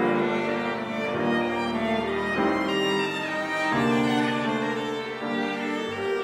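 Piano trio of violin, cello and grand piano playing together live, the violin and cello bowing long notes that change every second or so.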